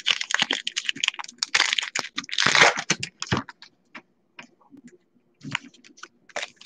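Wrapper of a baseball trading-card pack crinkling as it is torn open, with the loudest rip about two and a half seconds in. After that come scattered soft clicks of the cards being handled.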